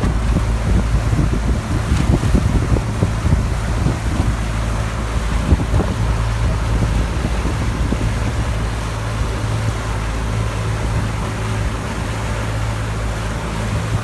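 Boat engine running with a steady low hum, with gusts of wind noise on the microphone in the first few seconds.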